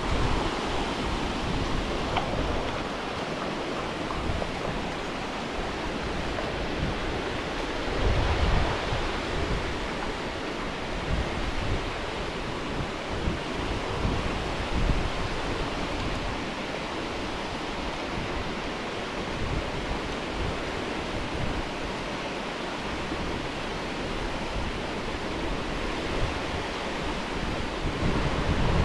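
Water rushing steadily over a weir, with gusts of wind buffeting the microphone about 8 seconds in and again near the end.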